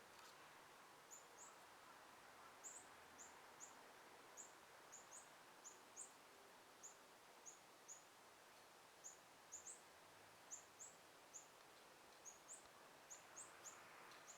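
A small bird repeating short, high-pitched chirps, about two a second at irregular spacing, over a faint steady hiss of outdoor ambience.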